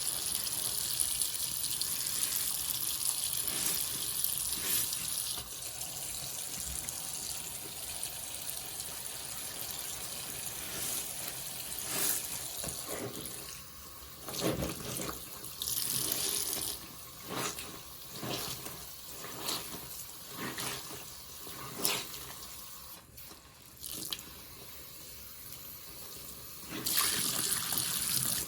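A soapy sponge soaked with Pine-Sol being squeezed, liquid streaming and dripping out of it. The flow is steady at first; in the second half come separate squeezes about every second or two, with a louder gush near the end.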